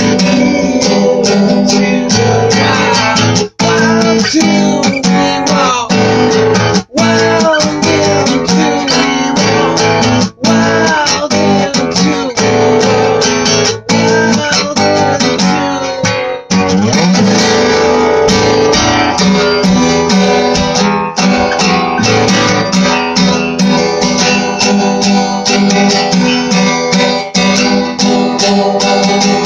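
Acoustic guitar strummed and picked, a continuous run of chords with short, sharp breaks about every three and a half seconds in the first half.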